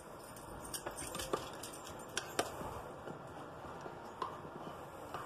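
A handful of light, scattered clicks and taps from a spoon against a ceramic mug of hot water as it pokes at the melting treat.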